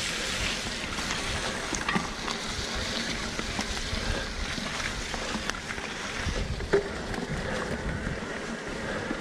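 Wind buffeting the microphone of a camera riding along on an e-mountain bike, a steady rushing with gusty rumble and the rolling of tyres on the trail. Scattered light clicks, and a sharper knock about seven seconds in.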